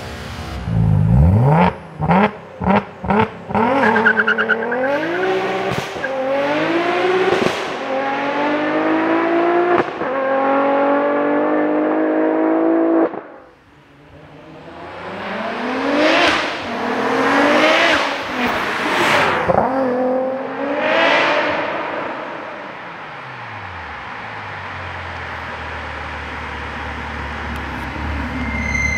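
Twin-turbo 2.7 L V6 (stroked to 3.0 L) of an Audi RS4 B7 revved with several sharp throttle blips, then pulling hard up through the gears with the pitch climbing and dropping at each shift. After a short dip it revs up and falls away several times, then settles to a lower steady engine note.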